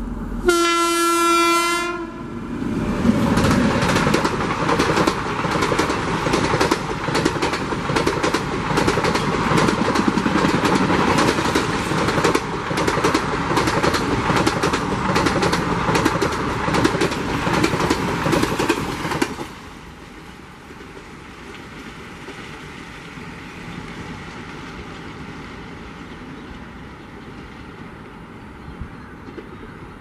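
WAP7 electric locomotive sounds one horn blast of about a second and a half. Then its express train passes close by at speed, with a loud, dense clatter of wheels over the track. The clatter cuts off sharply about 19 seconds in, leaving the fainter rumble of the train going away.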